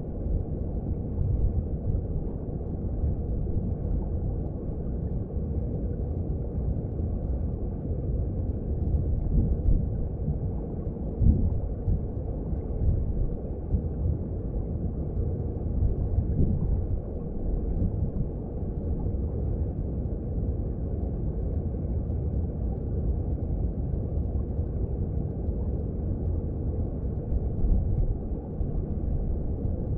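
Mountain stream heard underwater: a steady low rumble of flowing water, with small swells every few seconds.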